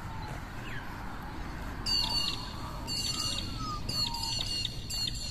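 Birds calling: a high, intricate chattering phrase repeated four times about a second apart, starting about two seconds in, over fainter whistles that fall in pitch.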